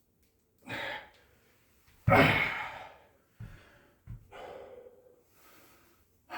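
A man breathing out hard while exercising: a short breath about a second in, then a louder, longer sighing exhale about two seconds in, followed by a couple of soft low knocks and quieter breaths.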